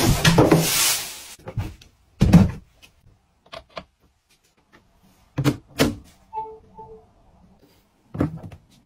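Rustling and creaking of styrofoam and plastic packaging, then a series of short knocks and thunks from handling a smart bedside table, with two short electronic beeps about six and a half seconds in.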